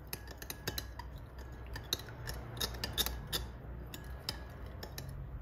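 Metal spoon stirring a creamy sauce in a glass bowl, clinking and scraping against the glass in irregular small clicks.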